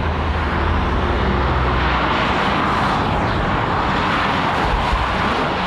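Nissan 350Z sports cars with VQ35DE V6 engines passing at speed: a low engine note under a rushing whoosh of wind and tyres that swells about two seconds in and eases off toward the end.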